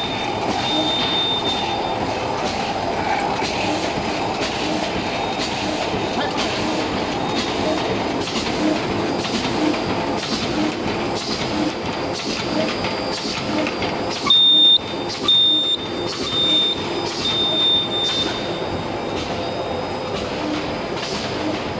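Two-line bottom-seal bag making machine with a flying knife running, a steady mechanical noise with an even, repeating clack of its cycle. A high whistling tone sounds in several short spells about two-thirds of the way through.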